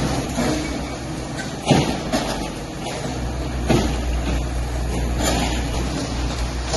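Excavators demolishing a concrete-framed building: diesel engines running steadily under three crashes of breaking concrete and debris, roughly every one and a half to two seconds.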